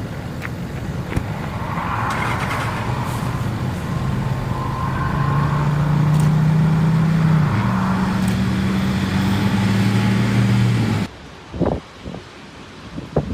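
A car engine drones steadily as the vehicle drives, its pitch stepping up and down a few times as with gear changes. About eleven seconds in, the sound cuts off abruptly into a quieter stretch with a few short knocks.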